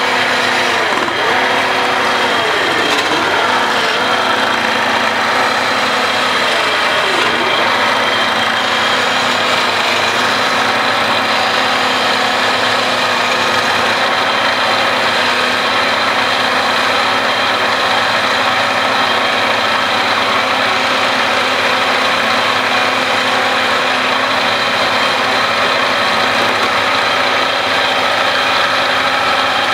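Wood lathe running, its motor humming steadily while a hand chisel cuts the spinning wooden sofa leg. The hum dips briefly in pitch several times in the first seven seconds, then holds steady.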